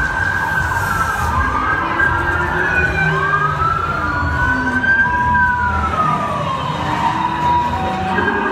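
Several sirens wailing over a deep rumble, their rising and falling wails overlapping, played through a club's sound system as a show soundtrack.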